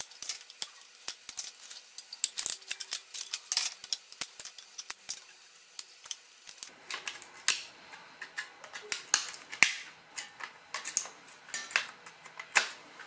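Pliers or side cutters snipping and prying the welded metal tabs off the lithium-ion cells of a battery pack: an irregular string of sharp metallic clicks and snips, heavier and more frequent from about halfway through.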